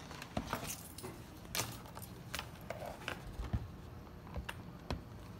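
Handling noise from a vinyl-covered speaker cabinet being lifted and turned on a table: several scattered light knocks and clicks, over a faint low hum.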